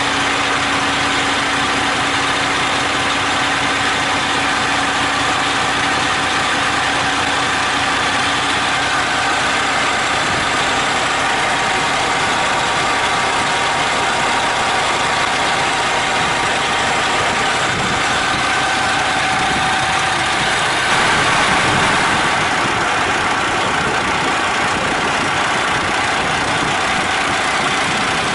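Diesel engine of an 18-wheeler tractor truck idling steadily.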